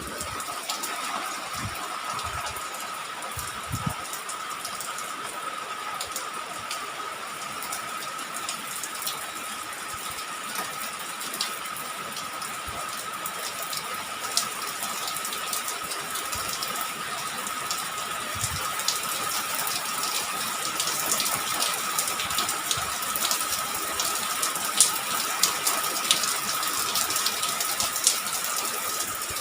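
Steady rain falling: an even hiss with scattered sharper drop ticks, growing slightly heavier in the second half. A thin steady high tone runs underneath.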